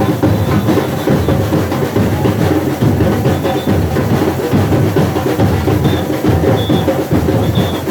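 Brazilian carnival bloco percussion band (bateria) playing samba, loud and continuous, recorded live.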